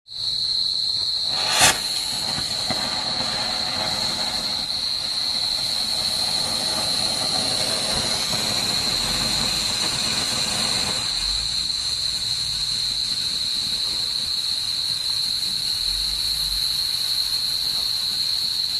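Standard Fireworks 'railway signal light' fountain firecracker catching with a sharp crack about a second and a half in, then hissing steadily as it sprays sparks; the hiss thins a little about two-thirds of the way through. Crickets chirp steadily underneath.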